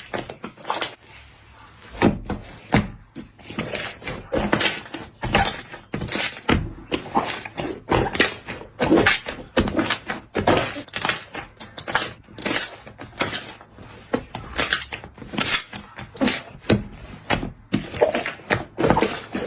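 Slime being squished and poked, a dense irregular run of sticky pops and clicks.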